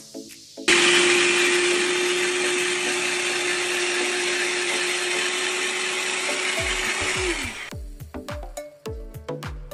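Electric drum grater switched on about a second in, its motor running with a steady hum while shredding boiled eggs, then spinning down with a falling pitch as it is switched off. Background music with a beat plays before and after.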